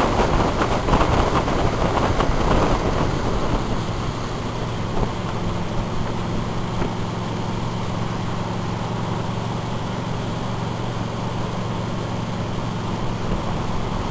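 Tow boat's engine running steadily under way, with rushing wind and water noise that is louder for the first three seconds or so.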